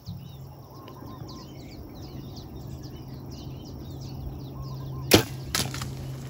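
A bow shot at a wild pig: a sharp snap of the bowstring releasing the arrow about five seconds in, then a second, softer sharp sound about half a second later. Small birds chirp throughout.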